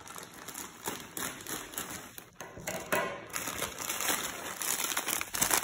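Thin plastic bags of frozen fruit crinkling and rustling as they are handled and one pack is pulled out of another, a run of small irregular crackles.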